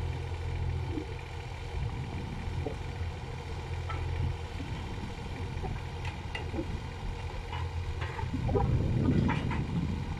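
Kubota mini excavator's diesel engine running steadily, with a louder surge near the end, while a few sharp knocks of concrete blocks being handled ring out over it.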